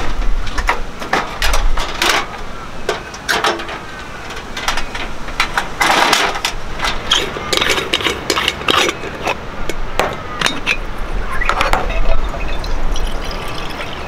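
Metal clinks and knocks of a stovetop moka pot's parts and coffee tins being handled and set down on a table, with water poured into the moka pot's base near the end.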